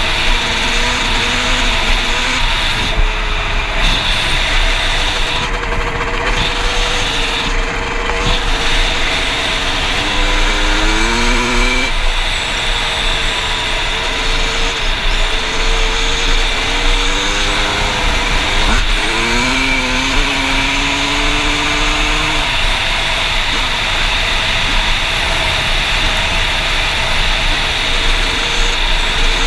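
Two-stroke Yamaha YZ dirt bike engine running under way. Its note climbs in pitch several times as it revs up through the gears, over heavy wind buffeting on a helmet-mounted camera.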